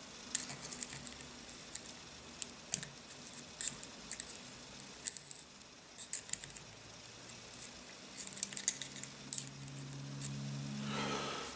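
Small, sharp metallic clicks and ticks, scattered and irregular: steel bearing balls being pushed with a thin metal pick into the grooves of a ball screw nut. A faint low hum rises near the end.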